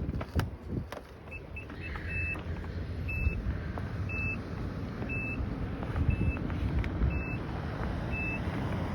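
A car's electronic warning beeper sounding a short high beep about once a second over the low running of the engine, after a couple of sharp knocks near the start.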